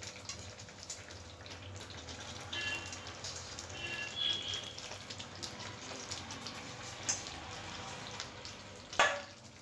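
Chicken pieces being added to a pan of cooked masala and sauces, with a soft, wet sizzling and bubbling. A sharp knock comes about nine seconds in.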